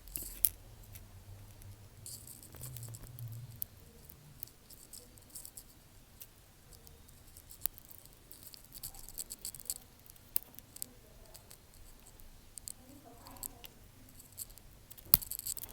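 Light, scattered clicks and taps of small repair tools and parts on an iPhone 7 Plus being opened for a screen replacement, irregular and sparse, with a brief low hum a couple of seconds in.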